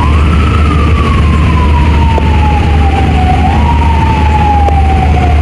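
Siren wailing: one tone that rises, slides slowly down, swells up again about three and a half seconds in and falls away, over a steady low rumble.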